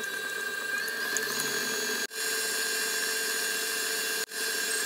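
Stand mixer motor running at medium speed with a steady high whine, its flat beater creaming butter and sugar in a steel bowl. The sound drops out twice for an instant.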